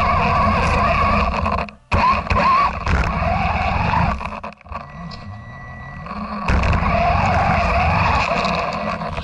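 Electric RC 4x4 truck ploughing through deep snow, heard from on the truck. The motor whines, rising and falling in pitch with the throttle, over a rumble of tyres churning snow. The sound drops out briefly twice, about two and four and a half seconds in, and stays quieter for a couple of seconds before picking up again.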